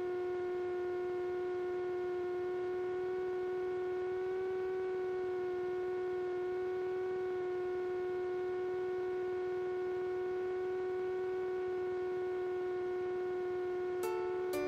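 Steady drone of the Piper Sport's Rotax 912 engine and propeller in the cockpit at settled approach power, holding one even pitch. Plucked guitar music comes in near the end.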